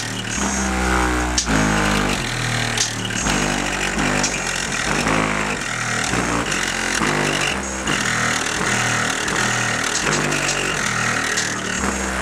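Loud bass music from two PPI PCX-124 car subwoofers in a 2002 Mazda Miata's trunk, the deep notes stepping up and down in pitch. The trunk lid is burping and the rear wing is rattling and buzzing along with the bass.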